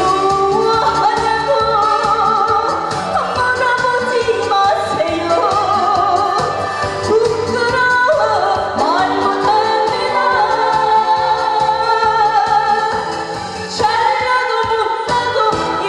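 A woman singing a Korean trot song into a handheld microphone over recorded backing music.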